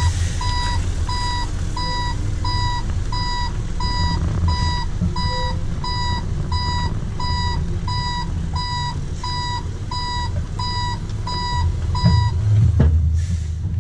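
Rear-loader garbage truck's reverse alarm beeping steadily, about one and a half beeps a second, over the running engine: the truck is in reverse. Near the end the beeping stops, followed by a knock and the engine rumbling louder.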